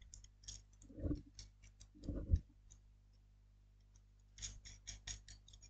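Small clicks and soft knocks of screws and hardware being handled and fitted by hand into a laser engraver's controller mount. A few scattered clicks and two dull knocks come first, then a quick run of small clicks near the end.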